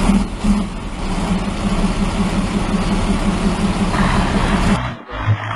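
Engine of a heavy machine running steadily. The sound changes abruptly near the end as another recording takes over.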